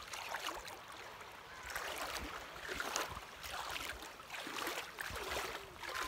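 Shallow seawater splashing and sloshing as a hand stirs and scoops through it, coming in a few uneven swells.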